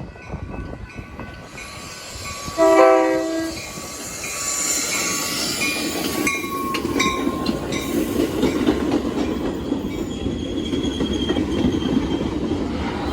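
A Metra commuter train's horn sounds one short chord blast a few seconds in. The train then runs steadily past, its wheels clicking over the rail joints, with some high wheel squeal.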